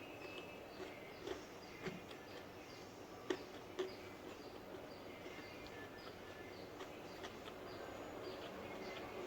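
Quiet eating sounds, chewing and mouth smacks with soft clicks, two louder clicks a little over three seconds in.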